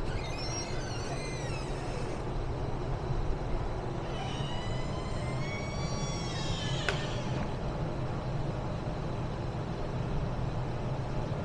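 Busy city street traffic: a steady low rumble of passing vehicles. Two high, wavering pitched sounds cut through it, one at the start and a longer one from about four seconds in, the second ending with a sharp click.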